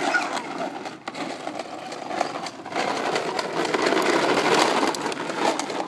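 A small motor running with a fast, continuous rattle, swelling and fading in loudness, typical of a lawnmower.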